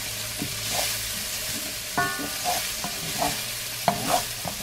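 Diced onion and garlic sizzling steadily in bacon fat in a stainless-steel frying pan, while a wooden spoon stirs them, scraping and tapping the pan a few times in the second half.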